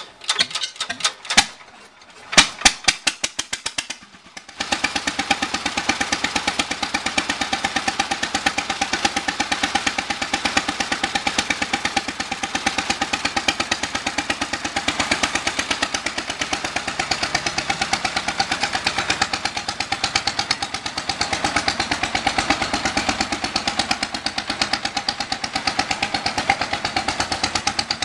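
1938 International Harvester LA single-cylinder stationary engine on a homemade garden tractor: a few separate, uneven firing pops as it starts, then from about four and a half seconds in it settles into a steady, rapid, even putt-putt.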